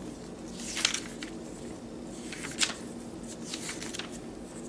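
Paper catalogue pages being flipped by hand: a few short rustles and flicks of paper.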